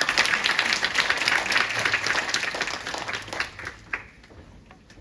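Audience applauding, a burst of many hands clapping that fades out about four seconds in.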